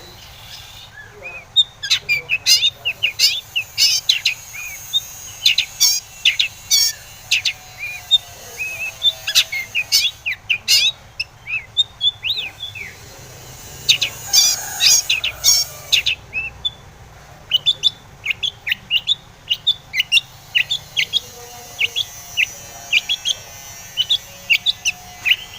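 Long-tailed shrike (cendet) singing vigorously: a rapid run of sharp, high chirps and short whistles in bursts, with brief pauses between.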